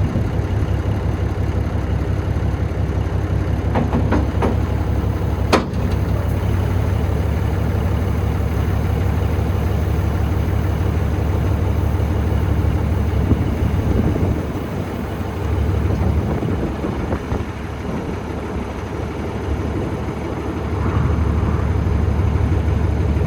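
Heavy engine idling steadily, with a sharp knock about five seconds in; it runs a little quieter for several seconds in the second half.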